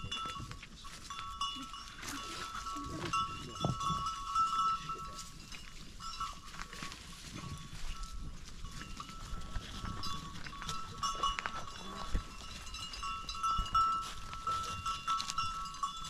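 A herd of goats and sheep, their neck bells ringing and jingling steadily, with now and then a low animal call.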